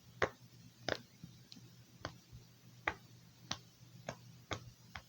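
Silicone pop-it fidget bubbles pressed one at a time, popping in a series of short, soft clicks, about nine in all at uneven gaps of roughly half a second to a second.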